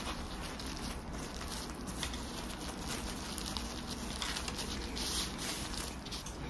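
Gloved hands rolling and pressing gimbap on a wooden cutting board. The nitrile gloves and the dried seaweed sheet rustle and crinkle softly, with a few light clicks and brighter rustles about four and five seconds in.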